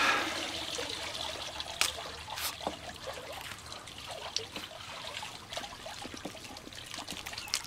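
A banana being peeled, with scattered soft crackles and rustles of the peel, over a faint steady trickle of water.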